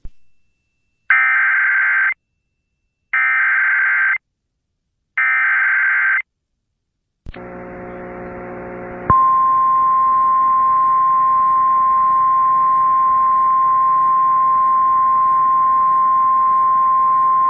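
Emergency Alert System alert header: three one-second bursts of screeching digital data, a second apart, then after a short silence a low buzzing hum, joined about nine seconds in by a steady single-pitch attention tone, the National Weather Service 1050 Hz warning tone, that signals a weather warning is about to be read.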